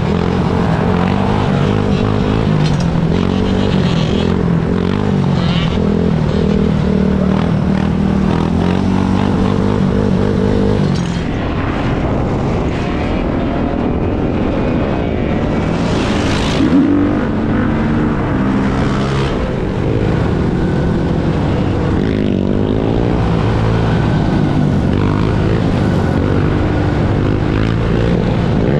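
Engines of sport ATVs and dirt bikes running as a group rides along a street. The nearest engine holds a fairly steady pitch for the first ten seconds or so, then rises and falls several times as it revs later on.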